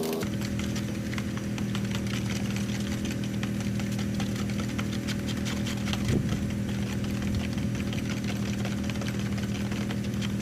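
Pressure washer's gas engine running at a steady idle. A higher-pitched whine cuts off just at the start.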